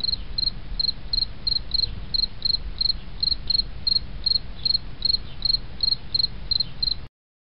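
Insect chirping steadily in short, even chirps, about three a second, over a low rumble; it cuts off suddenly near the end.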